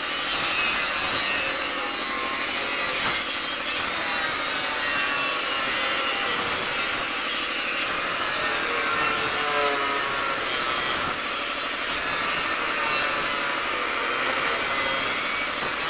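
Steady hiss of compressed air from a gravity-feed paint spray gun, spraying paint through a stencil.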